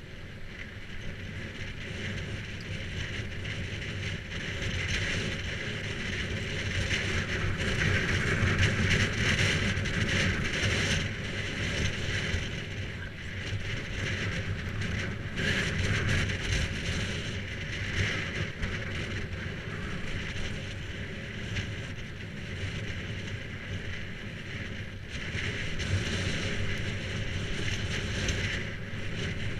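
Wind rushing over a moving bicycle's GoPro Hero 3 microphone, mixed with the rumble of tyres rolling on tarmac. The steady noise swells and eases as the bike's speed changes.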